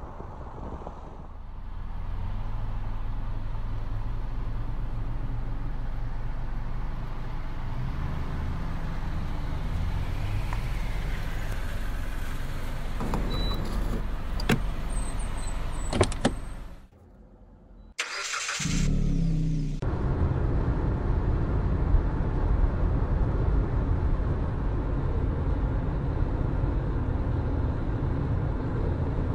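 A car engine running with a steady low hum. About seventeen seconds in, the sound cuts out briefly, then a rougher, noisier engine-and-road rumble carries on.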